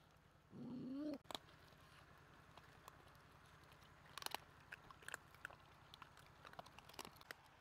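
Puppies chewing and crunching on cooked iguana and chicken: faint scattered crunches and clicks, busiest in the second half. A short pitched, voice-like sound comes about half a second in.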